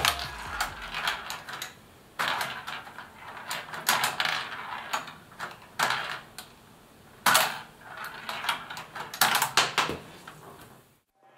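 LEGO Technic pinball machine in play: a plastic ball rolling and rattling across the brick playfield, knocking against LEGO bumpers and rails with irregular clicks and sharper clacks every second or two. It cuts off near the end.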